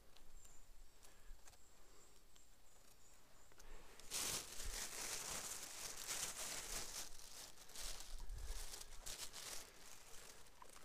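Crinkly rustling that starts about four seconds in and lasts about six seconds, from a plastic mushroom bag being handled while the picker pushes through low forest undergrowth. Before it there are only faint small clicks.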